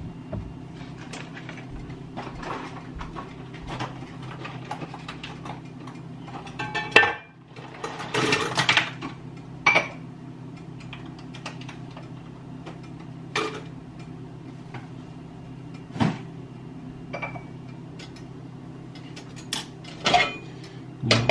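Kitchen clatter of dishes, pans and utensils: scattered clinks and knocks, with a short rush of noise about eight seconds in, over a steady low hum.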